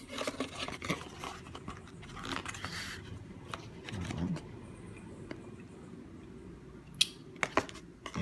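A small retail box and its packaging being opened and handled by hand to take out a charging cable: rustling and scraping with scattered light clicks, a denser rustle about two seconds in, and a few sharp clicks about seven seconds in.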